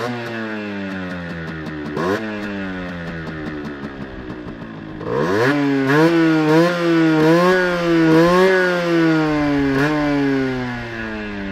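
1993 Aprilia Pegaso 50's 50cc two-stroke AM3 single-cylinder engine running while riding. Its note falls as the throttle is rolled off, with a short blip about two seconds in. About halfway through it revs up sharply and louder, rises and dips several times, then drops back near the end.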